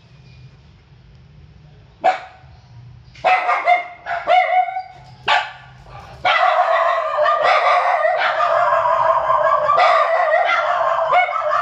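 Young puppy yelping: one sharp yelp about two seconds in, a few short yips, then from about six seconds in a long, continuous high-pitched crying with only brief breaks.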